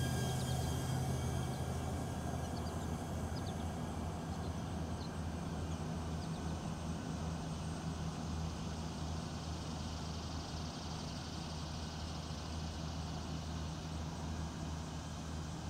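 DJI Avata cinewhoop drone's propellers at a distance under full throttle: a high whine fading out over the first couple of seconds, leaving a steady low hum with a hiss.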